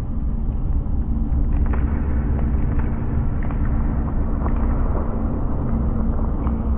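A steady deep rumble with a faint low hum and scattered small crackles, a dark ambient sound effect.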